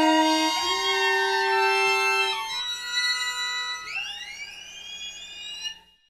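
Background music with long held notes that step from pitch to pitch. Near the end a rising glide sweeps upward, and then the music fades out.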